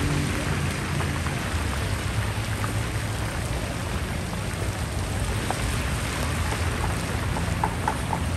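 Pieces of spiced chicken (ayam berempah) deep-frying in a large wok of hot oil: a steady, dense sizzle and crackle of bubbling oil, with a steady low hum underneath.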